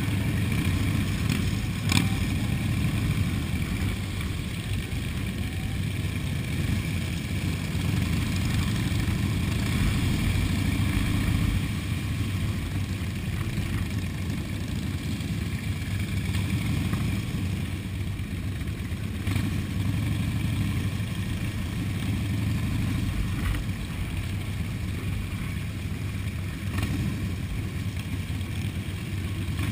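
Several motorcycle engines running steadily at low speed in a slow-moving column, heard close from a helmet camera on a moving motorcycle; a low, even drone with a few faint ticks.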